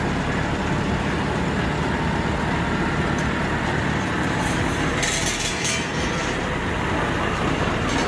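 Steady rumble of a vehicle or heavy machine engine running, with a short hiss about five seconds in.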